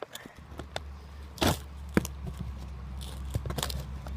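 Handling noise from a phone that is filming while it is being repositioned: a few sharp knocks and scrapes against its microphone over a low rumble.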